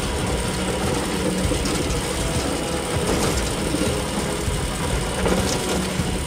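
Mine carts rolling along rails: a steady mechanical rumble.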